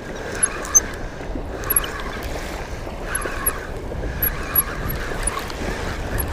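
Wind rumbling on the microphone, with small waves lapping at the water's edge.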